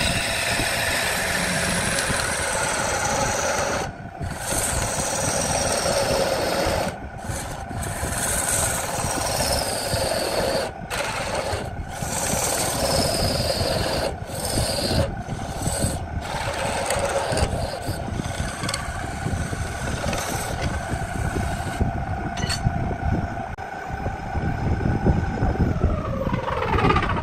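Wood lathe running with a steady motor whine while a gouge cuts a spinning wooden vase: a rough scraping of tool on wood, broken by short pauses as the tool lifts off. Near the end the whine falls in pitch as the lathe spins down.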